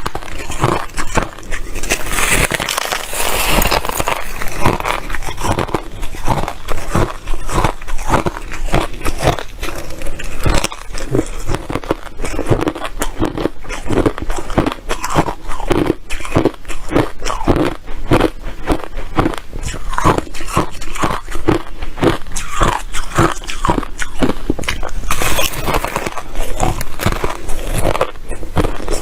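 Ice chips being bitten and chewed: a continuous stream of rapid, crisp crunches.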